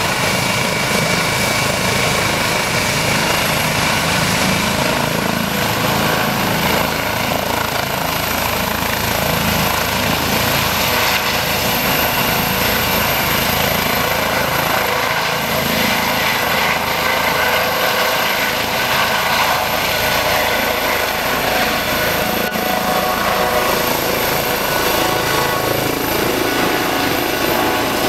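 Eurocopter EC135-P2 helicopter running: its twin Pratt & Whitney Canada PW206B2 turboshaft engines and rotor make a steady, loud noise. A high turbine whine rises slightly in pitch over the first several seconds, then holds steady.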